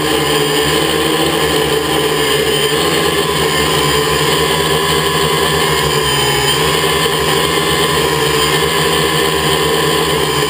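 Quadcopter's motors and propellers whirring steadily, a dense set of steady pitches that drift slightly up and down as the craft flies.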